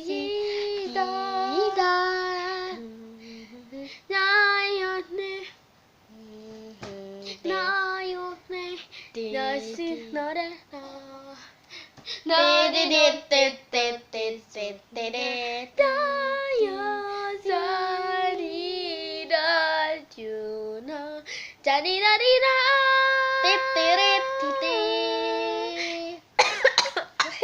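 A girl singing a Japanese song, holding and sliding between notes. Near the end the singing breaks off into a burst of coughing; she has a cough from being ill.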